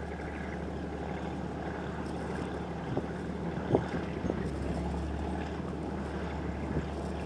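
ESh 6-45 walking dragline excavator running with a steady low drone, with a few short knocks or clanks from the machinery.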